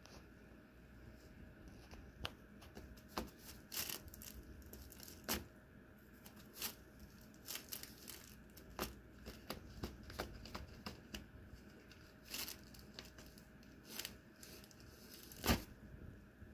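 A cat moving inside a nylon play tunnel, the crinkly fabric rustling and crackling in short, irregular crinkles, the loudest near the end.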